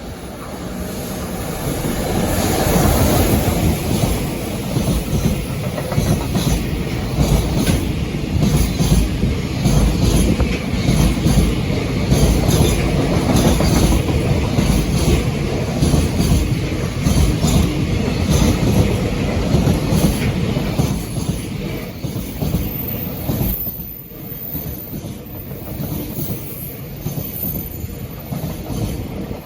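A JR Freight train passing close by, its wheels running over the rails with a dense, rapid clatter. The sound builds over the first few seconds, holds loud, and eases about twenty-four seconds in before rising again.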